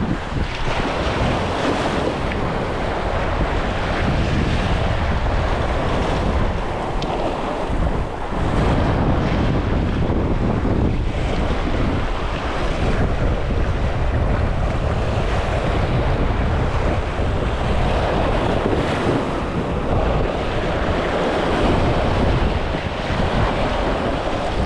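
Wind buffeting the microphone over waves washing against the jetty, a loud, steady rushing noise with no distinct events.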